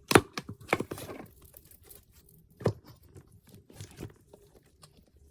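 Slime being handled and packed into its plastic container, giving off irregular sharp crackles and clicks. The loudest come right at the start, with more about two and three seconds later, thinning out toward the end.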